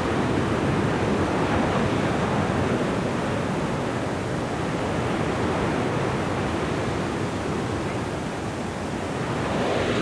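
Steady roar of heavy surf breaking along the shore, mixed with strong wind.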